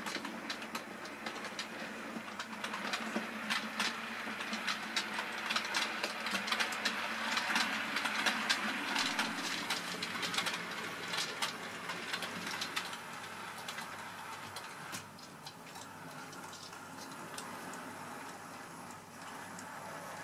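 OO gauge model train, a Hornby Q6 steam locomotive hauling four-wheel Pilchard wagons, running along the track with the wheels clicking over the rail joints. The clicking grows louder toward the middle as the train passes close, then fades.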